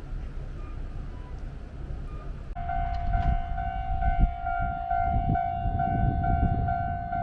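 Japanese railway level-crossing warning bell starts up suddenly about two and a half seconds in, a rapid repeating electronic ringing, over a low rumble.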